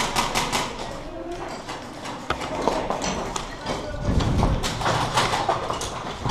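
Quick, regular footsteps of a player moving on a hard floor, with a heavier thump about four seconds in.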